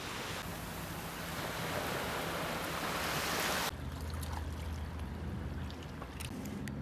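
Rushing water noise, growing louder over about three and a half seconds and then cutting off sharply, followed by a quieter low hum with a few faint clicks.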